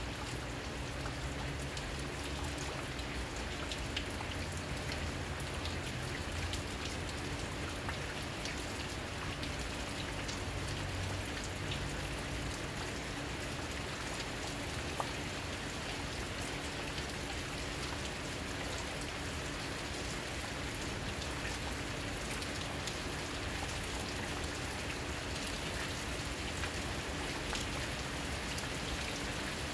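Steady rain falling, with many separate drops ticking close by and a faint steady hum underneath.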